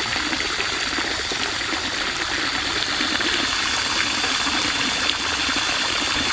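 A jet of water spraying into a bird bath's basin to rinse it out, a steady splashing hiss.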